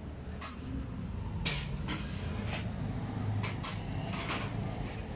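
Irregular scrapes and clatters of metal cooking utensils against a griddle and counter, about seven in all, over a steady low rumble.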